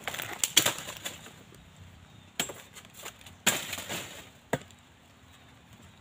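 A handful of sharp knocks or snaps at irregular intervals, the loudest about half a second and three and a half seconds in, with the last one about four and a half seconds in.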